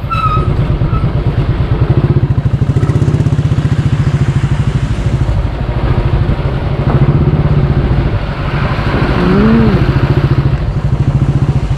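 Motorcycle engine running steadily while the bike is ridden, with an even, rapid firing pulse. A brief rising-and-falling tone sounds about nine and a half seconds in.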